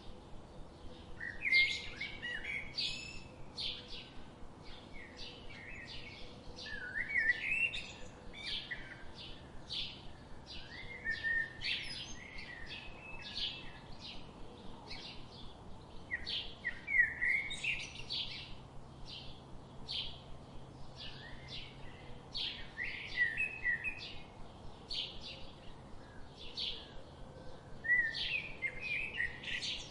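Songbirds chirping and singing continuously, quick repeated chirps and short trills overlapping, with louder phrases every few seconds over a faint, low, steady hum.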